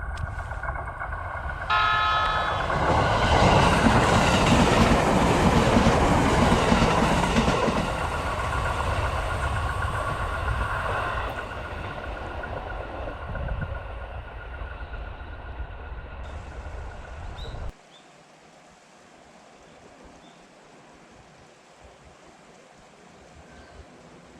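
Hachiko Line train at a level crossing: a short horn about two seconds in, then the loud rumble and clatter of the train passing, fading over the following seconds. Steady ringing tones of the crossing warning bell run under it. The sound cuts off abruptly about three-quarters of the way through, leaving only faint background.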